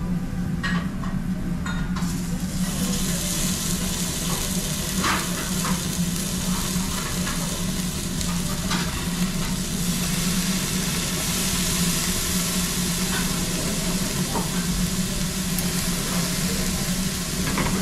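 Beef slices sizzling on a gas-fired yakiniku table grill: a steady frying hiss that swells about two to three seconds in as meat goes on the hot grate, with scattered clicks of metal tongs on the grill and a steady low hum underneath.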